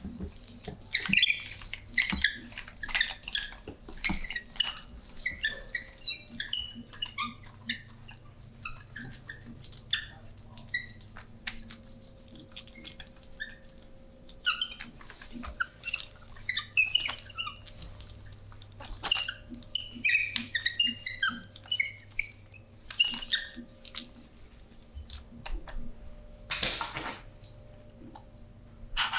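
Hands squeaking as they grip and slide over a client's skin during a massage: runs of short, high squeaks with a few sharp clicks, over a faint steady hum.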